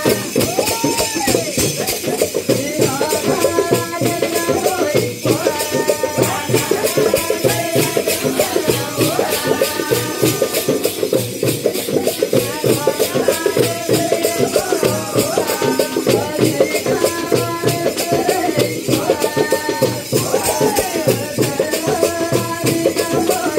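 Live folk music: a drum beaten in a fast, steady rhythm together with jingling ankle bells, and a repeated gliding melody above it.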